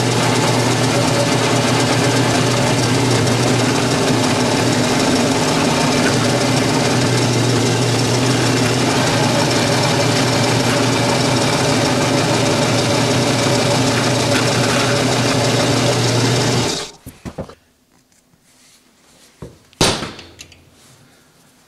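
Drill press motor running steadily while drilling a hole in steel angle iron. It cuts off suddenly about seventeen seconds in. A few light taps follow, then one sharp metallic click near the end.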